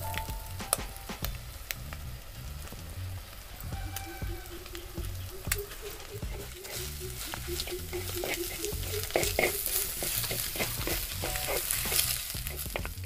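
Eggs sizzling as they fry in a black pan, a wooden slotted spatula scraping and stirring them with short clicks and scrapes. The sizzle grows louder about halfway through.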